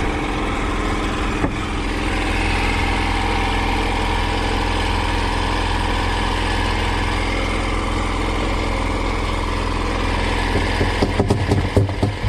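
Small boat engine running steadily at idle, a low even hum. Near the end a rapid, irregular knocking starts, a freshly landed tuna thrashing against the wooden boat.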